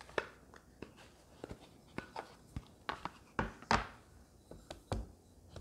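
Scattered light clicks and knocks of a plastic whetstone case and a sharpening stone being handled, as one stone is lifted off the stone holder for the next. The loudest is a pair of knocks a little past the middle.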